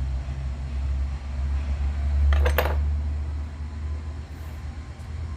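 Steady low machine rumble, with one brief metallic clatter about two and a half seconds in.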